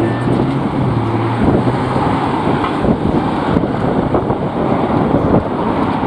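Road traffic passing on a wide road close by, with wind gusting on the microphone. A vehicle's steady engine hum stands out for the first second and a half, then fades.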